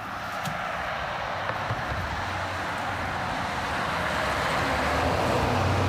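A car driving by on a road, its tyre noise growing steadily louder, with a low engine hum coming in near the end.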